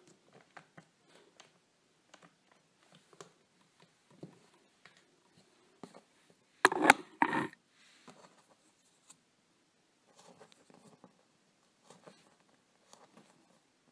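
Faint scattered taps and clicks of plastic Play-Doh tools and a plastic mould tray as dough is pressed into a mould and cut. About seven seconds in comes a much louder pair of knocks in quick succession.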